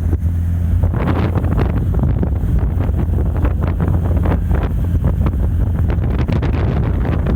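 Wind buffeting the microphone: a loud, steady low rumble with irregular gusty surges of noise.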